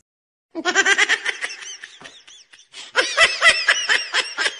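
Men laughing: a quick string of ha-ha pulses starting about half a second in, with a louder round of laughter about three seconds in.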